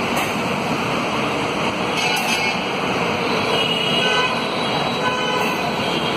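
Passenger coaches of an express train rolling past, a steady noise of wheels on the rails, with a few brief faint squeals and two sharp clicks.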